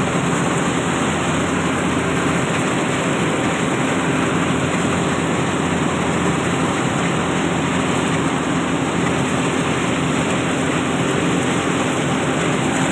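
Yanmar YH700 full-feed combine harvester running steadily: engine and threshing machinery blend into a dense, even noise with a low hum underneath.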